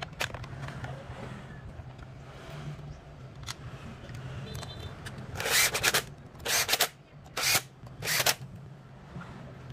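Power screwdriver driving in the screws of a Stihl 036 chainsaw's starter cover, in four short runs in the second half, over a low steady hum.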